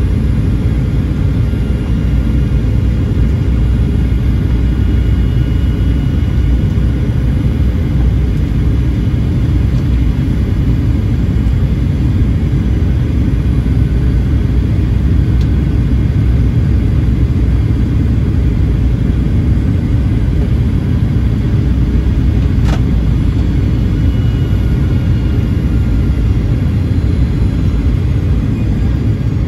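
Steady low rumble of engine and airflow noise heard inside the cabin of a Boeing 737-900ER on its approach, from a window seat beside the CFM56-7B engine, with a faint steady tone. A single brief click comes about three-quarters of the way through.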